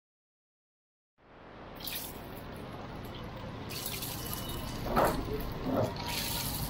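After about a second of silence, eggs start frying in a pool of hot oil on a flat steel griddle: a steady sizzle, with a louder spatter about five seconds in as another egg goes into the oil.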